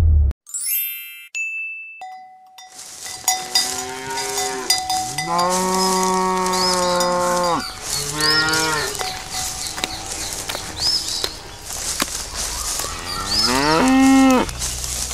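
Cow mooing several times in long, low calls, with a cowbell and birds chirping behind it. A short electronic chime plays at the very start.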